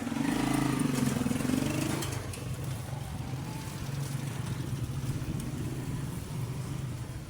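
A motor vehicle engine running steadily, louder for the first two seconds and then settling to an even level.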